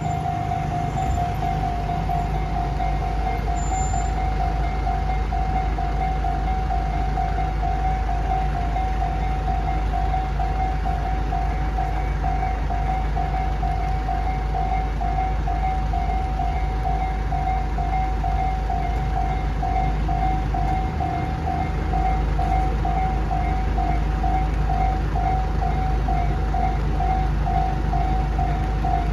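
Japanese railroad crossing warning bell ringing in a fast, even ding-ding rhythm over the steady low rumble of a train, which grows a little louder about three-quarters of the way through.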